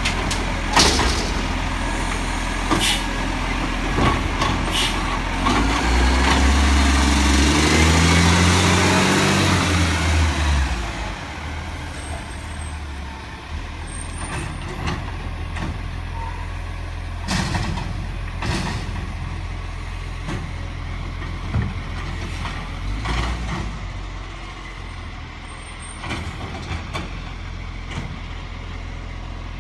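Iveco Acco side-loader garbage truck: sharp clanks as its lifting arm empties a wheelie bin, then the diesel engine revs up with rising pitch as the truck pulls away, growing fainter. Later come scattered clanks and air-brake hisses as it stops at the next bins.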